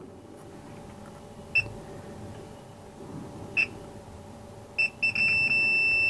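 Digital multimeter's continuity beeper: three short beeps about one and a half, three and a half and just under five seconds in, then a steady beep from about five seconds on. The tone signals continuity between the red probe and board ground: one lead of the capacitor being probed is grounded.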